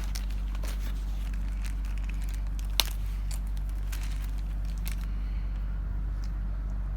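Quiet handling of toy packaging: faint scattered clicks and rustles, with one sharp click about three seconds in, over a steady low hum.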